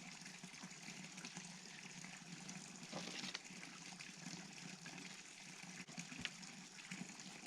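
Faint steady bubbling hiss of food cooking in a pot on the stove, with a few light clicks from kitchen handling about three and six seconds in.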